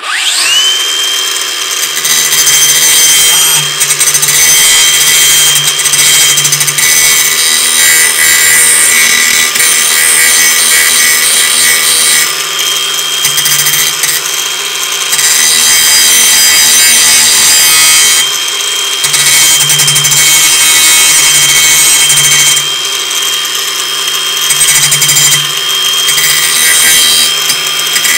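Cordless Ryobi angle grinder spinning up, then grinding the cutting edge of a steel lawn mower blade to sharpen it: a steady high motor whine under loud rasping grinding that eases off briefly several times as the disc is lifted from the blade.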